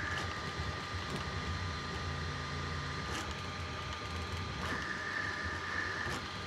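Bambu Lab A1 Mini 3D printer printing, its motors running with a steady hum. A high whine drops out just after the start and comes back about five seconds in, with a couple of faint ticks.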